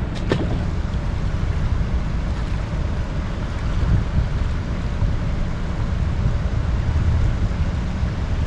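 Steady wind buffeting the microphone, with the rushing of a fast river current below a dam spillway.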